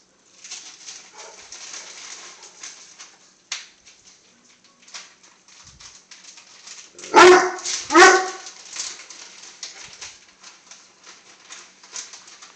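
A dog barks twice in a row, about a second apart, around seven seconds in. Lighter scattered clicks and scuffs sound before and after the barks.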